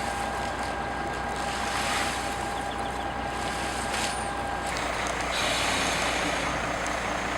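A motor running steadily, with a high, steady whine that cuts off suddenly about two-thirds of the way through.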